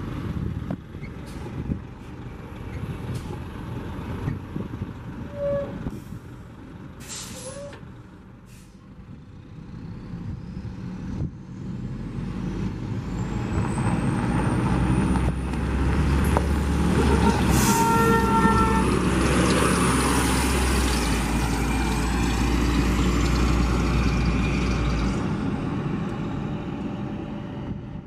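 Gillig Phantom transit bus's diesel engine pulling away and driving past over gravel, growing louder to a peak past the middle and then fading. A short sharp hiss of air, typical of the bus's air brakes, comes about seven seconds in.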